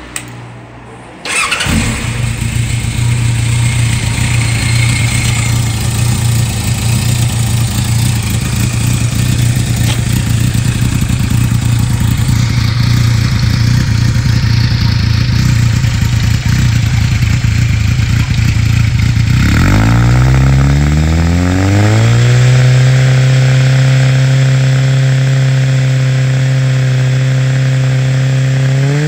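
Kawasaki Zephyr 1100's air-cooled inline-four, breathing through a Moriwaki Monster aftermarket muffler, catches about a second in and idles steadily. About two-thirds of the way through, the revs rise smoothly over a couple of seconds and are held at a steady higher speed.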